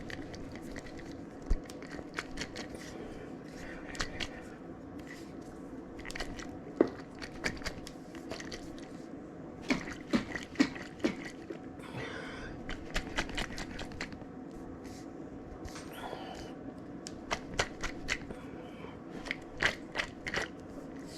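Irregular clicks and knocks, with a few short scrapes, from a container and kitchen things being handled while a remedy of onion, honey and lime is made, over a steady low hum.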